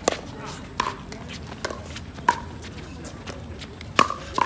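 Pickleball paddles hitting a hollow plastic pickleball in a fast rally: about six sharp pocks, half a second to a second apart, with a longer pause in the middle.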